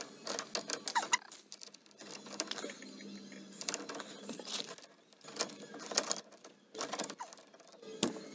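Pipe wrenches clinking and scraping on threaded metal pipe fittings: irregular sharp metallic clicks in clusters with short pauses, as a leaking joint on the hot water line is tightened.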